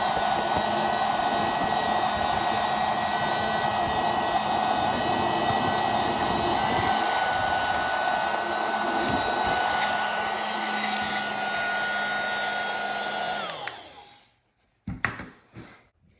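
HONK rechargeable mini keyboard vacuum cleaner running steadily, its small motor giving a high whine over the rush of air, while it is used on a computer keyboard. About 13 seconds in it is switched off and the whine falls in pitch as the motor winds down. A few clicks of handling follow.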